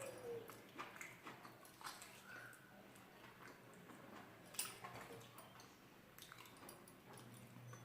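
Quiet chewing and eating sounds with scattered small wet clicks; one sharper click about halfway through.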